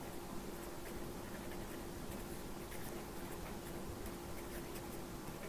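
Pen writing on paper: faint, irregular scratching strokes as a word is handwritten, over a steady low hum.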